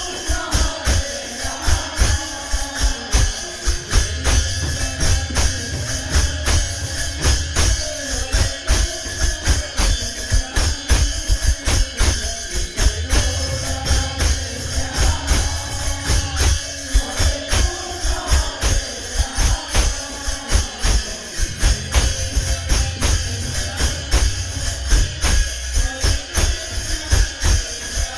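Kirtan ensemble playing devotional music: fast, steady jingling metal percussion over drum beats, with a melody line weaving above.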